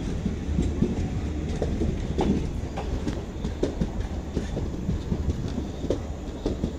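Passenger coaches of an Indian Railways express rolling slowly past as the train departs: a steady low rumble of the running gear, with wheels clacking irregularly over rail joints and points.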